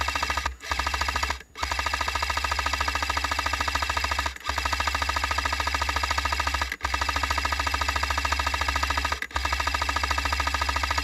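Airsoft electric support gun with a box magazine firing long full-auto bursts: a fast, even rattle over a low motor hum. The rattle breaks off briefly five times as the trigger is released and pulled again.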